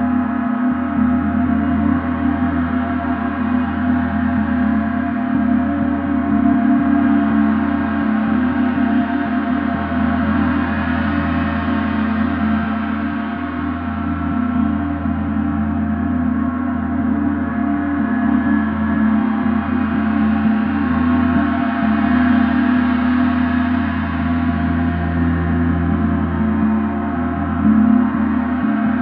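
Large suspended gong ringing in a continuous, sustained wash of many steady overlapping tones, as in a gong bath. The upper range swells and eases gently every ten seconds or so.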